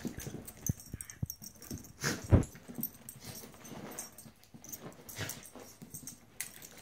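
Two dogs play-fighting, an American Eskimo dog and a small short-haired dog, with short irregular dog noises and scuffling. The loudest burst comes a little over two seconds in.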